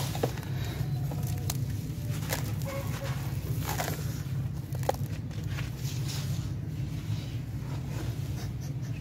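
Hands squeezing and crumbling gritty dark soil mixed with crumbled grey sand-cement chunks in a plastic tub: irregular gritty crunches and scrapes over a steady low hum.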